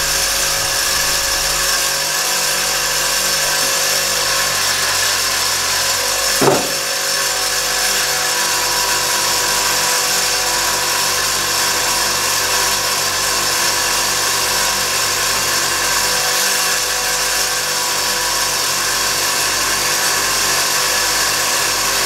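A motor-driven polishing tool running steadily, buffing the steel parts of a Swiss Army knife, with one brief louder sweep about six and a half seconds in.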